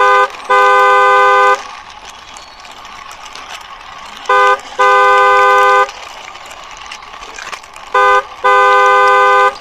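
Car horn honking in a two-tone chord: a short toot followed by a longer honk of about a second, three times about four seconds apart, over a quieter steady background hum.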